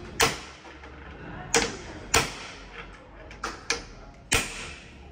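A hammer striking a steel chisel to drive out an old, seized bearing from the eye of a truck suspension arm held in a bench vise. Six sharp metallic blows at uneven intervals, each with a short ring.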